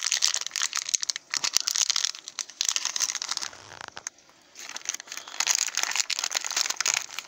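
Small plastic surprise-bag packet crinkling and crackling as it is handled and pulled open by hand, with a short lull about four seconds in.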